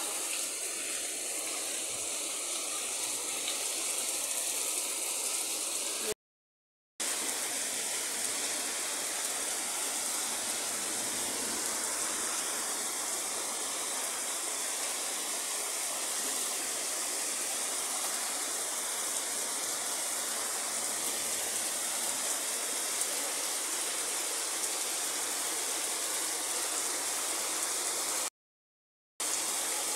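Steady downpour of rain, an even hiss with no let-up. It cuts out to silence briefly twice, about six seconds in and again near the end.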